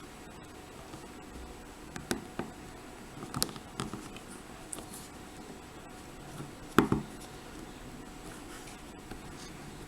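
Scattered small clicks and scrapes of hands and a tool working at the retaining clip on the back of a padlock, with a louder click about seven seconds in.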